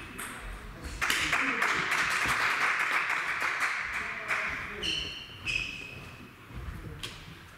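Clapping and applause from a few people in a large hall for about three and a half seconds, starting about a second in, then a couple of short pinging bounces of a table tennis ball.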